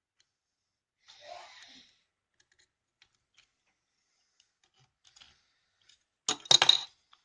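Hard parts being handled. There is a brief rustle about a second in, faint scattered ticks, then a quick run of loud, sharp clicks and knocks near the end.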